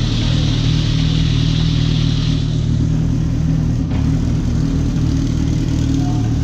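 Group C race car engine running steadily at low revs, a deep even rumble with a hiss over it that fades about two seconds in.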